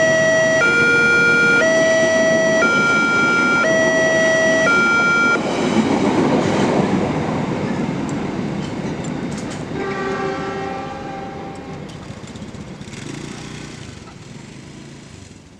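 Railway level-crossing warning alarm sounding two alternating electronic tones, each about a second long, until it stops about five seconds in. After that, the rumble and rattle of the passing train's carriages on the rails swells briefly and fades away. About ten seconds in, a short horn-like tone sounds.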